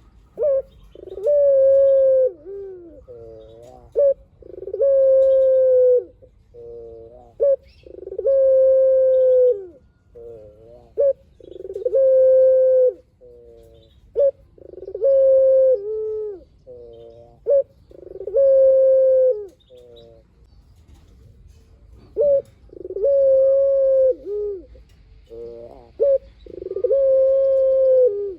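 Puter dove (ringed turtle dove) cooing over and over in a long-drawn call: a short note, then a long held coo that drops at its end, followed by a quick wavering run of notes, repeating about every three and a half seconds.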